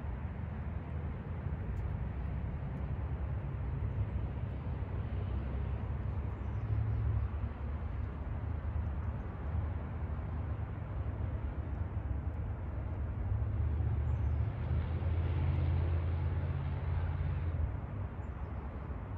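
Low outdoor background rumble, with a louder swell lasting a few seconds near the end, and a few faint high chirps.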